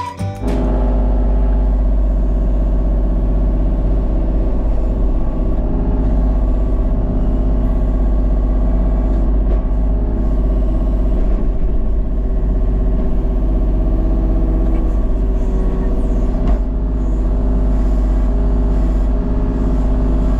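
A vehicle engine running steadily with a constant low rumble.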